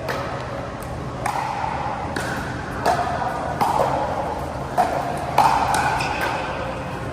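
Pickleball paddles striking a plastic pickleball in a rally: a run of sharp, ringing pops about one a second.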